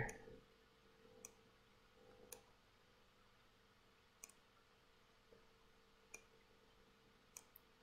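Faint computer-mouse clicks, about seven at irregular intervals, over near silence.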